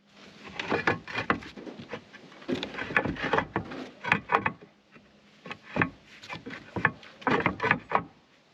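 Reclaimed clay roof tiles knocking and clinking against each other as they are handled and set in place, in several short clusters of sharp knocks.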